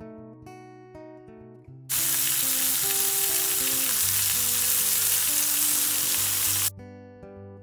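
Thin slices of seasoned meat sizzling loudly as they fry in a hot pan. The sizzle starts suddenly about two seconds in and cuts off sharply about five seconds later, over acoustic guitar music that plays throughout.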